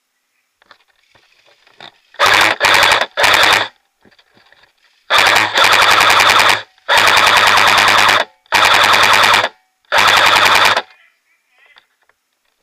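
Airsoft electric rifle firing on full auto in seven loud bursts: three short ones, then four longer ones of about a second each. Each burst is a fast, even chatter of shots over the gearbox whirring.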